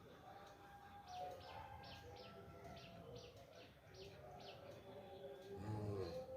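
A small bird chirping faintly and repeatedly, short falling chirps about two to three a second, over outdoor background noise. Near the end, a brief low sound with a falling pitch.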